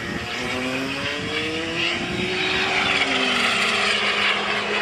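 Model jet's gas turbine engine: a whine and rush as it flies past. The whine falls in pitch and the rush grows louder toward the end.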